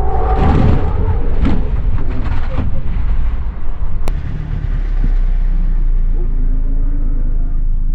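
Mk6 Volkswagen GTI's 2.0-litre turbocharged four-cylinder engine running under way, over a heavy low rumble, with a sharp click about four seconds in.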